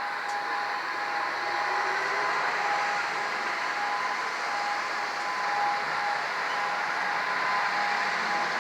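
Hörmann ECN electronic siren sounding a steady tone, its strength wavering slightly, over a constant rushing noise.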